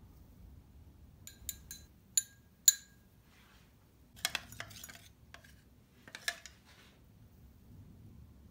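Stemmed dessert glasses chinking against each other and the counter as they are handled: five short ringing clinks, the last two loudest. Rougher clattering knocks of tableware follow about four and six seconds in.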